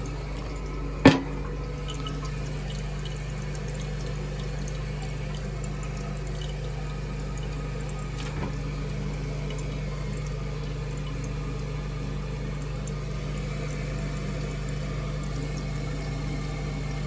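Toilet tank refilling through a Fluidmaster 400 fill valve, a steady rush of water into the tank and overflow tube. A sharp knock about a second in.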